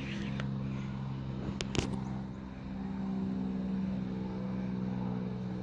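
A steady mechanical hum, like an engine or motor running, holding several even tones, with two sharp clicks just under two seconds in.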